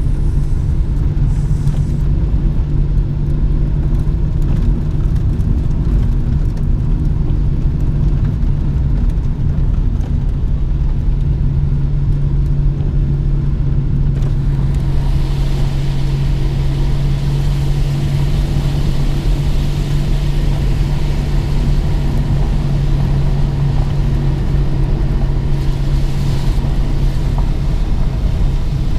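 Steady low drone of a car driving on a wet road, heard from inside the cabin, with the engine's even hum underneath. About halfway through, a hiss of rain and wet tyres joins in and stays.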